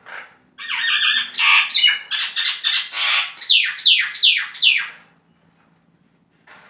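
Male black-naped oriole (kepodang) calling loudly: a few seconds of harsh, scratchy calls that end in about five quick downward-sweeping notes.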